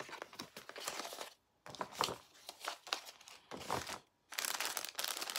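Clear plastic packaging crinkling and rustling as it is handled, in irregular crackles that cut out briefly twice.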